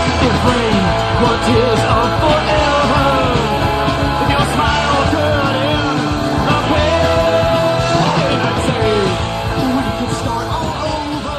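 Rock music with singing and guitar, fading down near the end.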